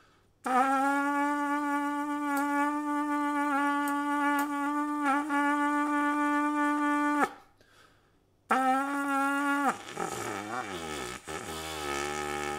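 Trumpet mouthpiece and lead pipe, played with the main tuning slide out, sounding a steady long tone for about seven seconds, then a shorter tone at the same pitch. Near the end comes a lower, wavering buzz. The air is sighed into the horn rather than forced, as a gentle post-surgery warm-up.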